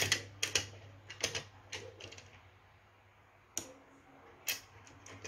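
Plastic toy train cars clicking and knocking against each other and the wooden track as they are handled: a run of light clicks in the first two seconds, then two more about a second apart later on, over a low steady hum.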